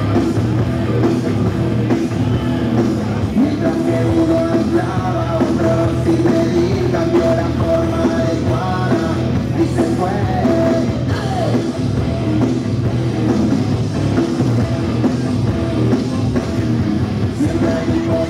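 Rock music with singing, playing continuously.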